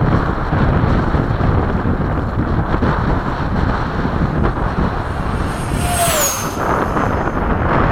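Heavy wind buffeting the microphone. About six seconds in, the high whine of an RC MiG-21 model's electric ducted fan sweeps past, dropping in pitch as it goes by, then fades.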